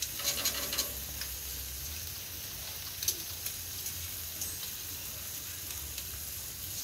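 Bacon sizzling on a barbecue: a steady hiss of frying fat, with sharp crackles and pops near the start and again about three seconds in.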